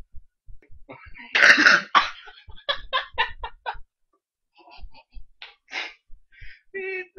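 A person coughing hard once, then quick repeated bursts of laughter, about five a second, followed by quieter chuckles and breaths.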